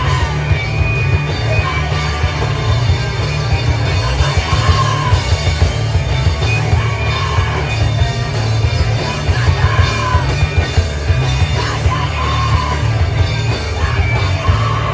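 Live punk band playing loud: electric guitar and drums, with a vocalist yelling into the microphone.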